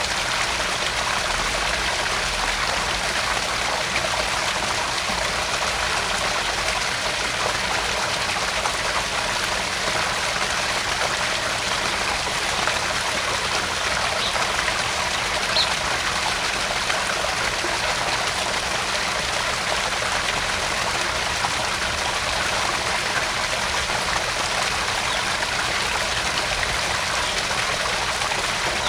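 Small garden pond waterfall: water spilling steadily into the pond with a constant splashing trickle.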